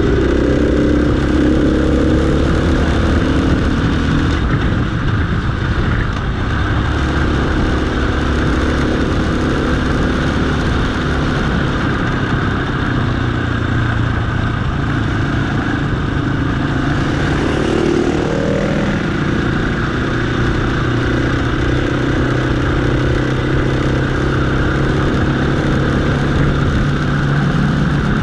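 Dirt bike engine running under way on a dirt track, its note shifting up and down with the throttle, with wind noise over the microphone.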